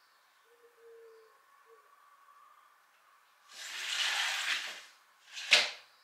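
A window being opened by hand: about a second of sliding, rushing noise, then one sharp knock near the end as the frame hits home. Before that, a few faint low hoots, like a bird cooing outside.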